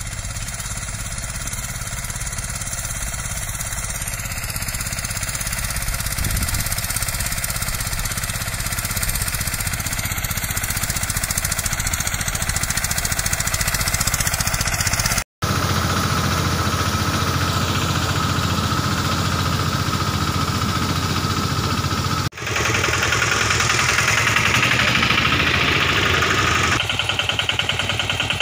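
Engine of a small three-cylinder, 10.5 hp motorcycle-style mini tractor running as it works, heard across several spliced clips that cut abruptly about halfway through and again near three-quarters through. Near the end it turns into a faster, even pulsing.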